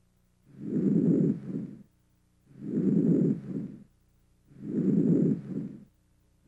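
Normal vesicular breath sounds heard through a stethoscope, soft and low-pitched. Each breath is a longer inspiratory sound running straight into a short, fainter sound early in expiration, then silence; three breaths, about one every two seconds.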